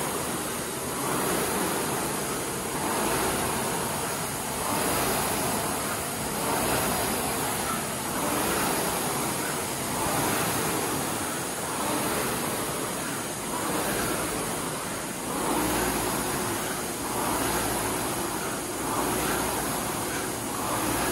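Concept2 rowing machine's fan flywheel whooshing as a man rows, the rush of air swelling with each drive stroke about every two seconds.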